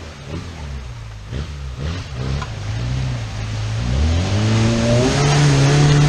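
Suzuki Samurai's engine pulling under load through a muddy creek, with water splashing around the wheels. About four seconds in it revs up as the jeep climbs out onto the bank, and it is loudest near the end.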